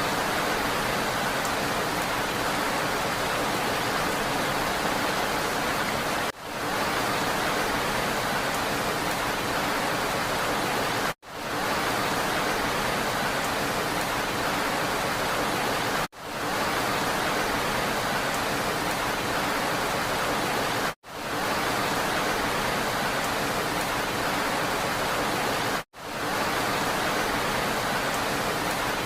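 Steady, dense rain hiss. It is a short recording played on a loop, so it cuts out for an instant and fades back in about every five seconds.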